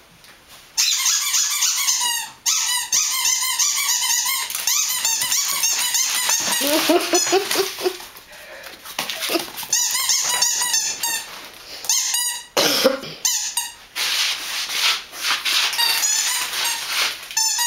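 Dogs at play: a long run of rapid, high-pitched squeaks with short breaks, and a lower cry about seven seconds in.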